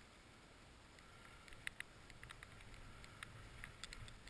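Near silence: a faint hiss of skis sliding over snow, with scattered light ticks from about a second and a half in, the hiss growing slightly toward the end.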